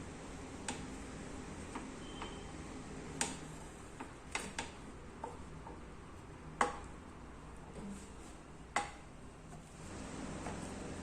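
Scattered sharp clicks and clinks of kitchen utensils, about a dozen at uneven intervals, over a steady low hum.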